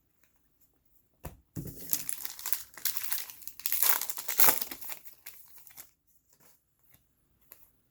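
Trading card pack wrapper being torn open and crinkled by hand: a short knock, then about four seconds of crackling and tearing, followed by a few faint ticks near the end.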